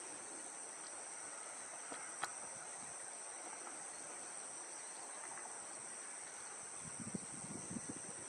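A steady, high-pitched chorus of insects, two unbroken tones held throughout. A single sharp click sounds about two seconds in, and soft low rumbles come near the end.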